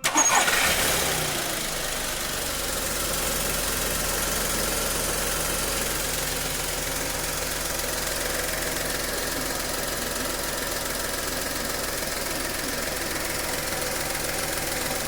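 Volkswagen-group 1.2 12v three-cylinder petrol engine running after its cylinder head rebuild and head gasket replacement: the revs flare briefly at the start, then drop to a steady idle.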